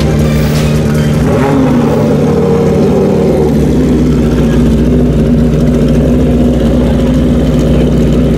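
Street-legal sport-bike drag racing motorcycles running steadily at idle, loud, as they roll up to the starting line.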